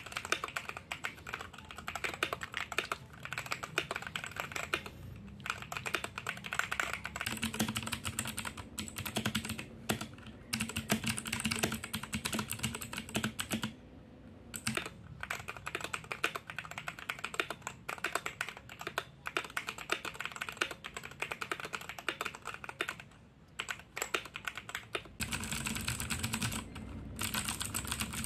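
Steady fast typing on a mechanical keyboard, first with Royal Kludge red linear switches, then with Royal Kludge blue clicky switches. There are a few short pauses between runs of keystrokes.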